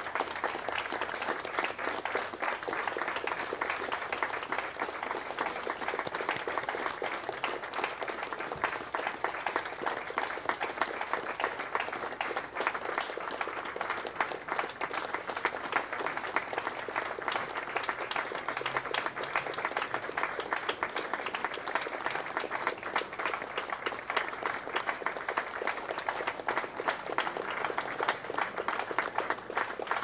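A small crowd applauding: many people clapping steadily and without a break, a sustained round of applause.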